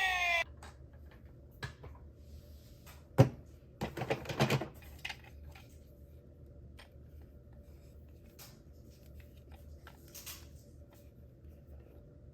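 A toy minicar's electronic siren, falling in pitch, cuts off suddenly about half a second in. Scattered small clicks and knocks follow, with a sharp knock about three seconds in and a quick cluster a second later.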